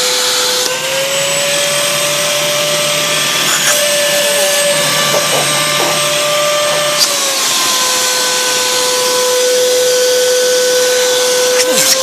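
Vacuum cleaner running steadily, a loud motor whine over a wide rushing hiss. Its pitch rises slightly about a second in and drops back about seven seconds in.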